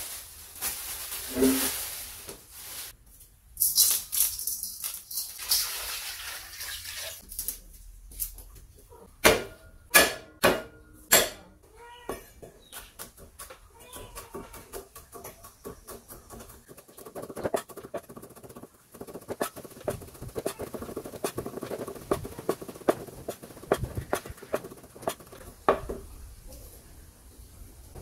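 A large cleaver chopping garlic on a round wooden chopping block: rapid, light knocks through most of the second half. Earlier, a plastic bag rustles, and a few loud knocks come near the middle.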